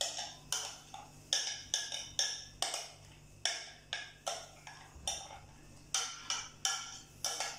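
A utensil tapping and knocking against a glass bowl, about two sharp clinks a second in an uneven rhythm, as soaked lentil paste is knocked out into a pot of boiling stock.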